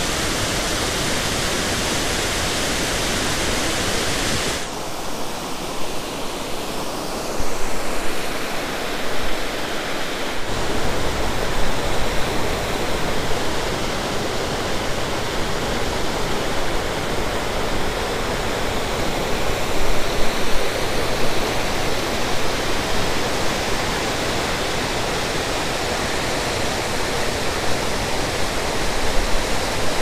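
Aira Beck's waterfalls and rocky cascades, a loud, steady rush of falling water. The tone of the rush changes abruptly about four and a half and ten and a half seconds in, between shots of different falls.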